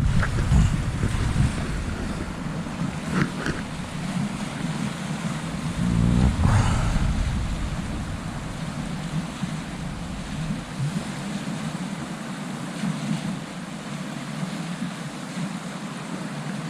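Steady rush of a flowing trout stream, with wind buffeting the microphone as a low rumble through roughly the first seven seconds before it eases.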